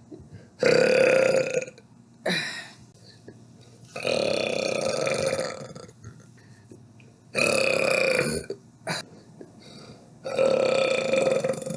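A person burping repeatedly: four long, drawn-out belches, with a couple of short ones between them.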